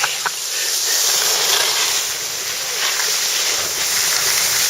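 Steady hiss of skis sliding over packed snow on a ski run at speed, mixed with wind on the microphone, with a couple of short clicks right at the start.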